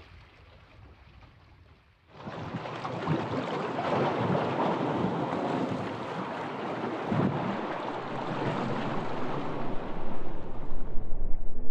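Lake Michigan waves lapping and splashing against boulders at the shore, starting suddenly about two seconds in after a faint hiss. Near the end a louder, pulsing sound takes over.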